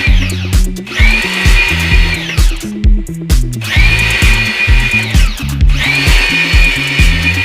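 Background electronic music with a steady beat and a stepping bass line. A whining synth tone slides up and holds, repeating about every two and a half seconds.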